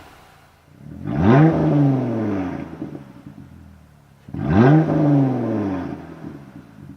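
Jeep Gladiator engine revved twice through its exhaust. Each rev climbs quickly in pitch, then falls back toward idle over a second or two. The second rev comes about three seconds after the first.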